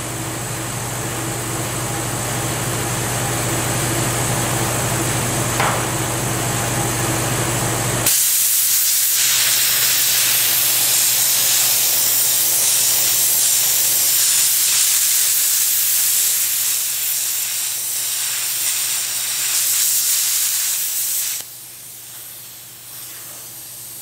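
A steady low hum, then about eight seconds in a loud, even hiss starts abruptly and runs some thirteen seconds before cutting off: a plasma cutter cutting through steel.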